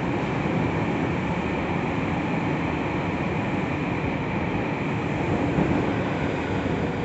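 Tokyu 3000 series electric train running through a tunnel, heard from inside the car: a steady rumble of wheels on rail and running noise.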